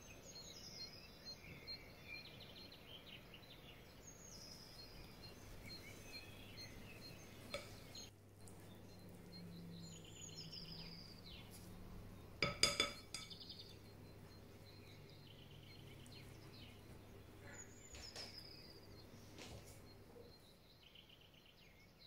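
A single sharp, ringing clink of a metal utensil against a glass mixing bowl about halfway through. Faint birdsong, short falling chirps repeated every few seconds, runs underneath.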